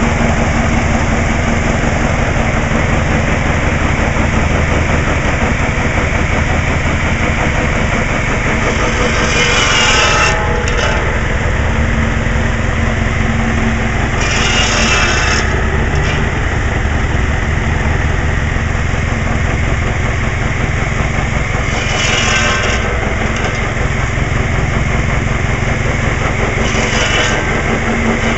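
Homemade engine-driven chop saw running steadily, with four short bursts of high hiss a few seconds apart as the blade cuts through sawmill slabs for firewood.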